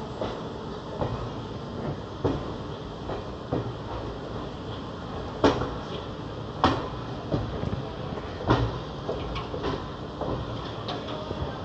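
Passenger train coach rolling slowly through a station, heard from its open door: a steady rumble with irregular clanks and knocks from the wheels and couplings, a few sharp loud ones through the middle.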